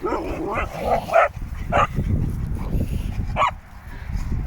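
Dogs yipping and barking in rough play: a quick run of short, high yelps in the first second or so, then single yelps about two seconds in and again near three and a half seconds.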